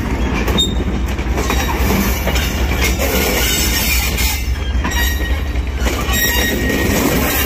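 Millat Express passenger coaches rolling past, their wheels grinding and squealing against the rails over a steady heavy rumble. The friction noise comes from track in poor condition.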